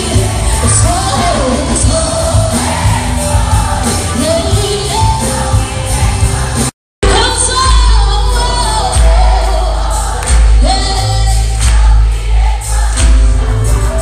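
Live Christian pop concert: band and singer amplified through the PA in a large hall, picked up loud on a phone, with a strong bass. The sound cuts out completely for a moment about seven seconds in, then resumes.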